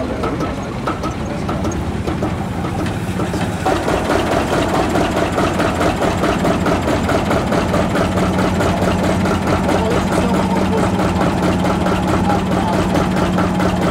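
Vintage tractor engine idling steadily. A little under four seconds in, it grows louder with a quick, even beat.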